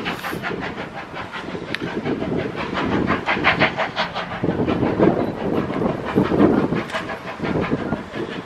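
Steam locomotive working along the line: a rapid, even chuffing with a hiss of steam over a low rumble.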